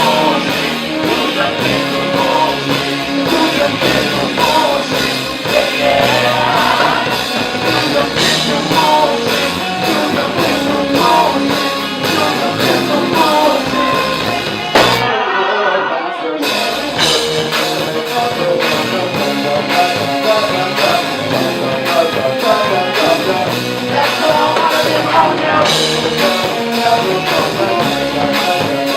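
Live band playing the instrumental intro of a rock song, with drum kit on a steady beat and guitar. About 15 s in the drums and bass drop out for a second and a half, then the full band comes back in.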